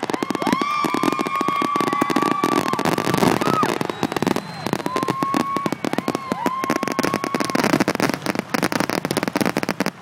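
Fireworks going off in quick succession: dense crackling and popping, with several shrill whistles that each rise briefly and then hold a steady pitch for a second or two.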